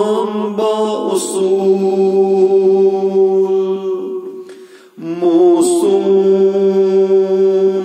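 A man singing a Kashmiri devotional naat unaccompanied, drawing out long steady notes on a vowel. There is a brief breath pause about four to five seconds in, then another long held note.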